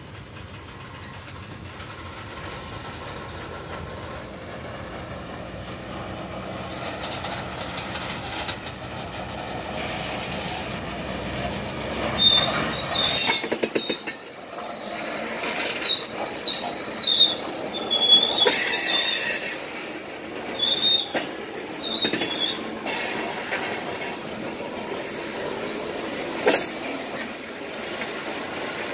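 Freight hopper cars rolling slowly by on steel wheels: a rumble of wheels and rail that builds, with scattered clicks over the rail joints. From about halfway through, high-pitched wheel squeal comes and goes in short bursts.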